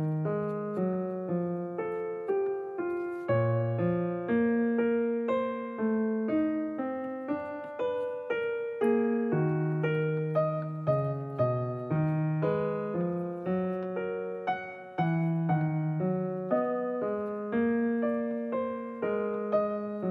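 Background piano music: a gentle melody of struck notes over soft chords.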